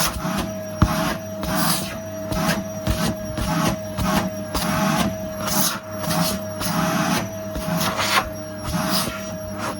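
Vacuum cleaner running with a steady motor whine, its head swept back and forth across the floor in even strokes a little under a second apart, with a single sharp knock about a second in.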